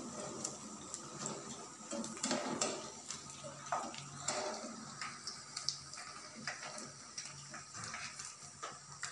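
Pea pakoras frying in hot oil: a steady sizzle with many sharp crackles and pops, alongside light metallic clinks as a wire mesh skimmer lifts them out of the pan.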